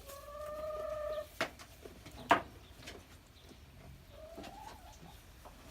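A hen's drawn-out call lasting just over a second, then a sharp click about two seconds in, and a shorter rising call near the end.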